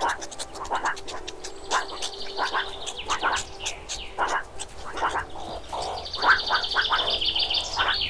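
Nature ambience of wild animal calls: short calls repeating irregularly, twice joined by a long, high, buzzing trill.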